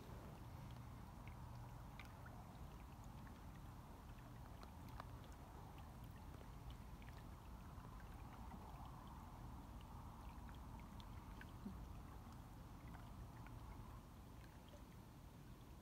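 Faint, steady gurgling of river water welling up through an open hole in the ice, over a low rumble, with scattered tiny ticks.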